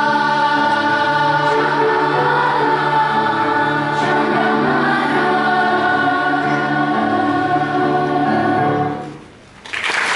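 Children's choir singing the closing phrase of a song, ending on a long held chord that stops about nine seconds in. After a brief pause, audience applause breaks out near the end.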